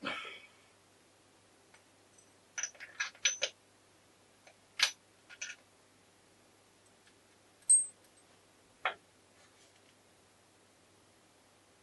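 Scattered clicks, clinks and light knocks of small metal motorcycle gearbox parts being handled and tapped on a table, with a quick cluster of several knocks about a quarter of the way in and a sharp ringing clink about two thirds through.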